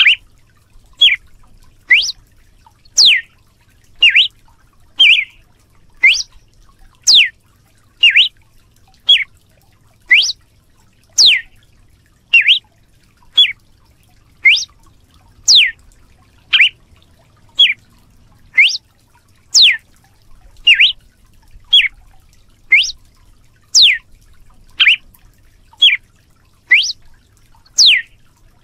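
Red-cowled cardinal (galo-de-campina) calling loudly and steadily, about one note a second. Pairs of sharp notes sweeping down from high to mid pitch alternate with pairs of shorter, lower notes.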